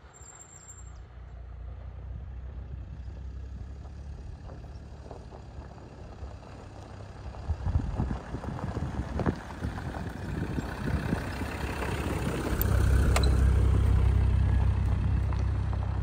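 Land Rover Discovery 2 driving past on a gravel forest track: its engine rumble grows louder as it approaches, is loudest a little past two-thirds of the way through as it passes, then begins to draw away, with crunching and clatter from the gravel under the tyres.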